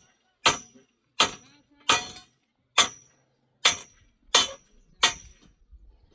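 Seven sharp blows of a struck tool, spaced evenly at a little under one a second, each with a brief high metallic ring.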